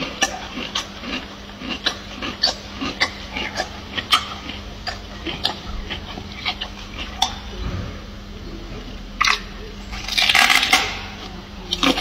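Gorilla chewing raw broccoli, with irregular wet crunches and mouth smacks and a louder, longer burst of crunching about ten seconds in.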